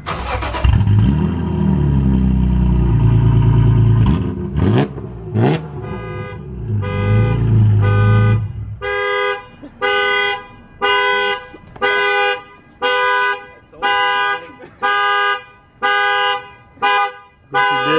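BMW E46 M3's S54 inline-six, running with no cats and no muffler, is revved hard, held high, blipped twice, revved again and let drop back. From about six seconds in, a car alarm sounds a horn-like tone repeated about every 0.8 seconds.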